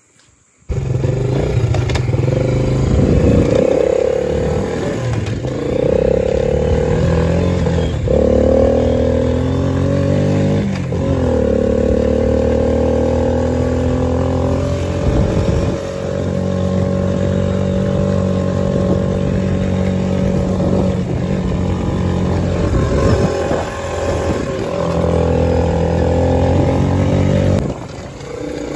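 Yamaha Raptor 80 ATV's small single-cylinder four-stroke engine under way, revving up and easing off several times, then running at a steadier pitch with a few brief drops.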